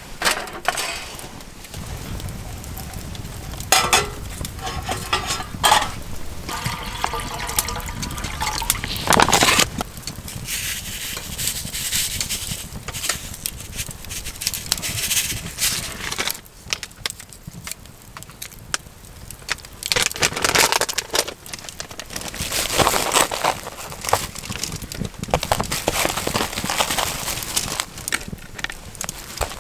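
Metal clinks as a folding stainless-steel box stove is fitted together, then a pot of water heating over glowing charcoal with the fire crackling.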